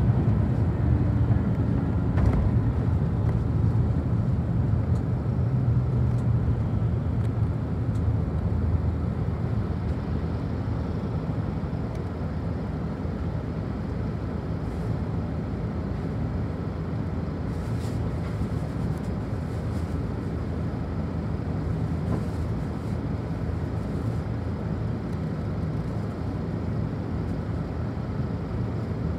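City bus interior: engine and road noise while driving, easing off about a third of the way in as the bus comes to a stop, then the engine idling steadily.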